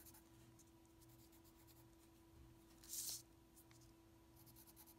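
Pencil scratching on paper as small squares are coloured in, in faint quick strokes, with one louder scribble about three seconds in. A faint steady hum runs underneath.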